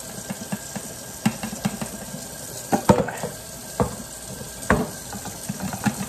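Hot grease being poured from a stainless steel frying pan into a sink under a running tap, crackling and sizzling over the sound of the water. Three sharp metal clanks of the pan and its lid come in the middle, with a quick run of ticks near the end.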